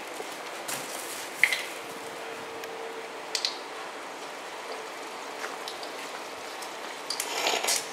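Faint liquid trickling and a few light clicks and taps around a PC submerged in oil in a fish tank, over the steady noise of its running fans; a faint hum fades out about three seconds in, and louder handling noise comes near the end.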